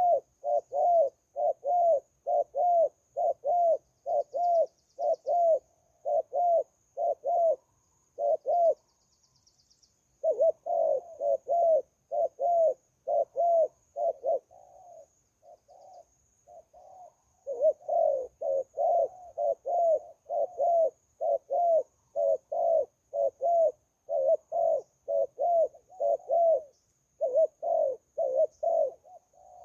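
Zebra dove cooing in a long run of rapid, repeated notes, about two a second, with a short pause about nine seconds in and softer notes around fifteen seconds. A faint, steady high-pitched tone sounds underneath.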